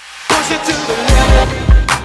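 Background music fading in with a rising swell, then a beat with deep bass thumps from about a second in.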